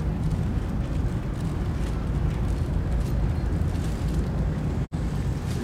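Steady low rumble of the car ferry Lavender's machinery, heard inside a passenger corridor while the ship is still under way. The sound cuts out for an instant near the end.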